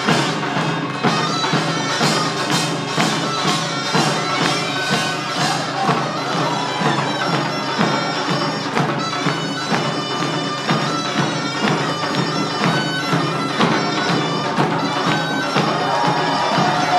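Korean pungmul band music: a taepyeongso (Korean shawm) playing a nasal, piercing melody over a steady quick beat of drums and gongs.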